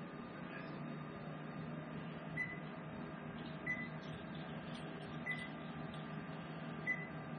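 Electric kitchen range running with a steady hum, giving four short high beeps about every second and a half, an oven's alert signal.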